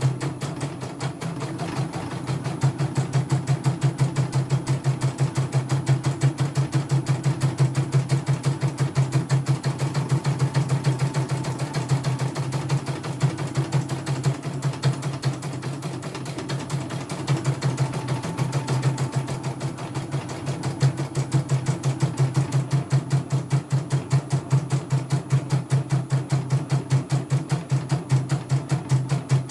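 CNY computerized embroidery machine stitching a design: rapid, even needle strokes, about ten a second, over a steady motor hum, easing off briefly a few times.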